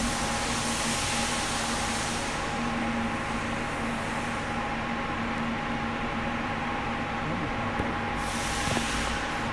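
Steady machinery hum with two held tones under a hiss; the hiss fades out a few seconds in and comes back near the end.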